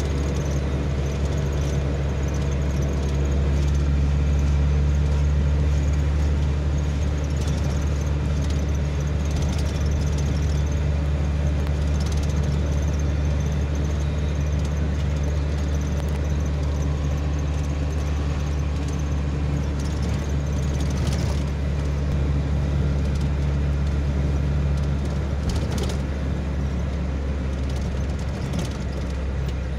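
Steady engine drone and tyre noise heard from inside a moving car's cabin, a strong low hum with a few faint knocks over the rough road surface.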